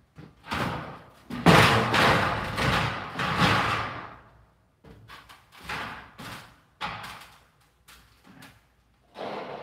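Light-gauge steel studs clattering and banging as they are handled, loudest in a long rattling burst from about 1.5 to 4 seconds in, then a string of shorter metallic knocks.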